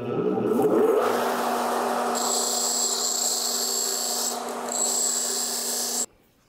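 Motor-driven Scotch-Brite wheel spinning up with a rising whine, then running steadily, with a hissing scrub added twice as the steel shaft is held against it to knock down a burr so bearings will slide on. The sound cuts off suddenly about six seconds in.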